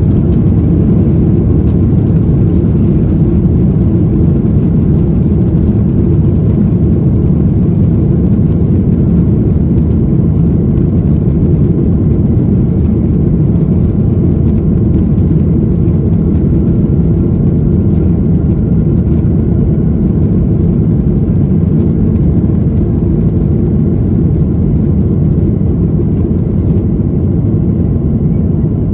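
Cabin noise of a Boeing 737-800 moving along the ground, heard inside the cabin over the wing: a loud, steady rumble of its CFM56-7B engines and the airframe, with no rise or fall.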